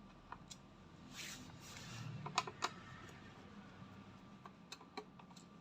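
A laptop's plastic case being handled during disassembly: scattered light clicks and taps, with two sharper clicks a little before the middle and a brief rustle about a second in.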